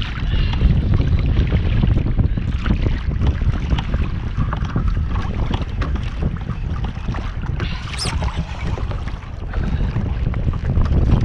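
Wind buffeting the microphone over water slapping and splashing against a pedal-drive kayak's hull on choppy sea, a steady rumble with scattered small splashes.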